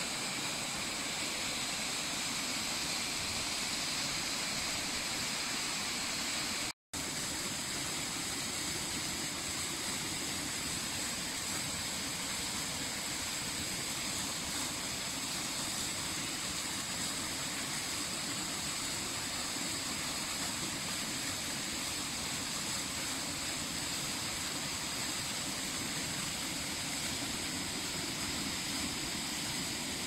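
Waterfall pouring over rock into a pool: a steady rush of falling water, broken once by a split-second dropout about seven seconds in.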